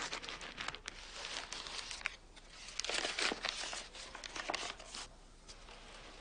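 A crumpled sheet of paper crinkling as it is handled and unfolded, in irregular crackles that die down about five seconds in.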